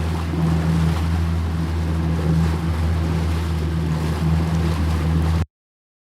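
Small boat's outboard engine running at a steady speed, with water splashing. The sound cuts off abruptly about five and a half seconds in.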